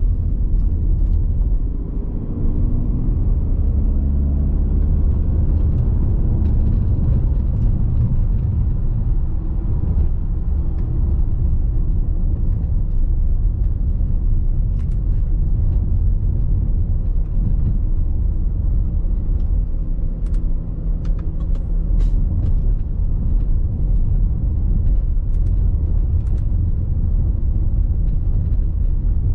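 Audi A6 C6 2.0 TDI four-cylinder diesel car driving, a steady low rumble of engine and road, with the engine note rising and falling over the first few seconds. From about halfway on there are scattered sharp knocks as the car goes over a bumpy road.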